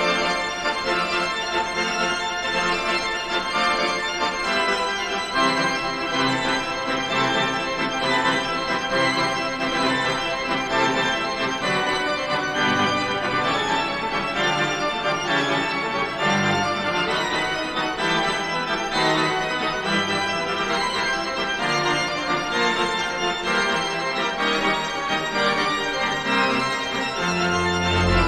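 Background music carried by an organ, with sustained, changing chords.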